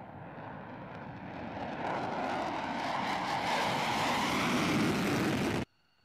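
F-35 fighter's single F135 jet engine at full afterburner on takeoff, a dense roar that grows steadily louder as the jet rolls toward and past, then cuts off suddenly near the end.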